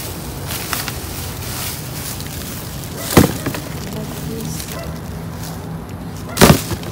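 Hands rummaging through plastic bags of discarded produce in a dumpster, with light rustling, a steady low hum underneath, and two loud sharp knocks, about three seconds in and near the end.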